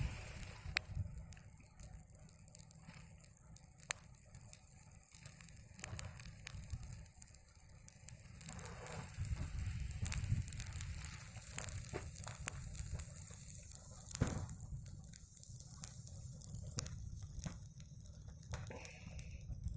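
Small campfire of birch bark and birch twigs burning, with irregular sharp crackles and pops over a low steady rumble.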